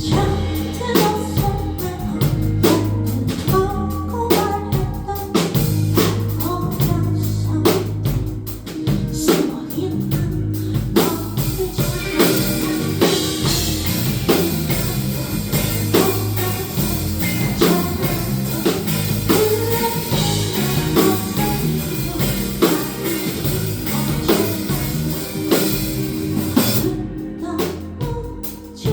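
A band playing a song with drum kit, guitar and bass, and a singing voice over it. The cymbals and upper part drop out briefly near the end.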